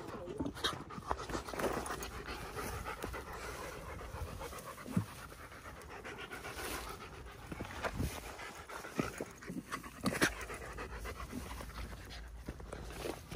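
A dog panting steadily close by, with scattered clicks and knocks.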